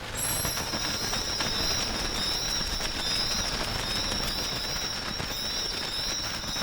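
Spooky cave ambience sound effect: a steady hiss under high, thin whistling tones, with faint chirps and many small clicks. It starts abruptly out of silence.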